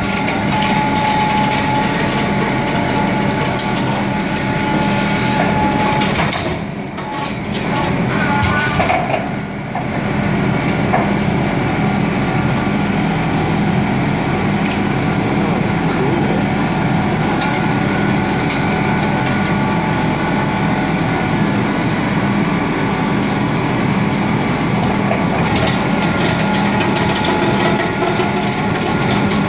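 Rear-loading garbage truck working its chain winch, hoisting a bin on two chains: a loud, steady machine noise with a constant low hum, easing briefly about seven and nine seconds in.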